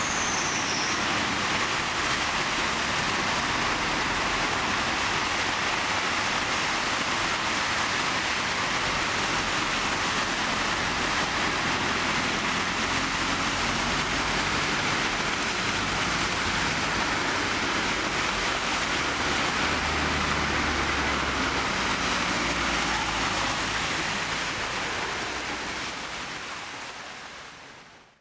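Cars driving through a flooded street, their tyres churning and spraying floodwater in a steady rushing hiss, with the low engine hum of passing cars. The sound fades out near the end.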